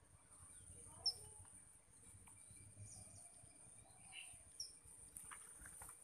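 Faint, scattered short high chirps from small birds feeding on the ground, a few separate calls over a steady faint high hiss.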